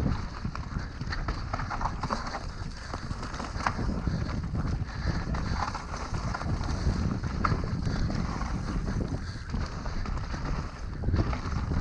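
Mountain bike riding fast down a dry dirt trail: wind rushing over the camera microphone, with tyre noise on the dirt and frequent clicks and rattles from the bike over bumps.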